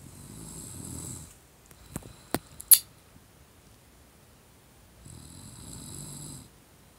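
Loud snoring: two snores about four seconds apart, each lasting over a second. Three sharp clicks fall between them about two to three seconds in, and the last click is the loudest sound.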